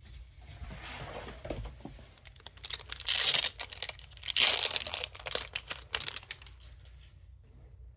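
Foil wrapper of a Pokémon trading card booster pack crinkling and tearing as it is opened, with two louder spells of crackling about three and four and a half seconds in.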